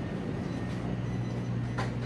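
Steady low machine hum of the store's equipment, with a brief click near the end.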